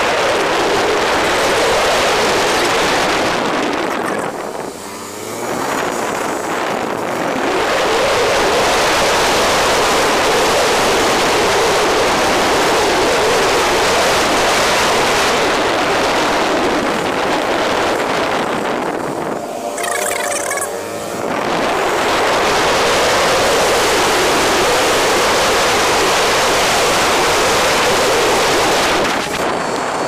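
Wind rushing over the microphone of a moving motorcycle, a steady loud rush that covers the engine. It eases briefly twice, about five seconds in and again around twenty seconds in.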